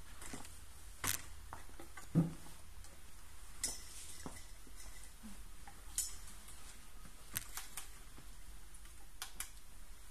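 Scattered light clicks and knocks as the jointed arm of an LED teeth-whitening lamp is swung round and positioned, with a dull thump about two seconds in, over a low steady hum.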